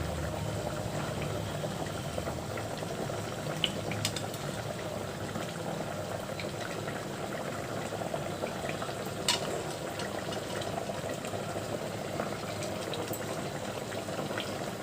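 Steady bubbling of boiling liquid, with two faint clicks about four and nine seconds in.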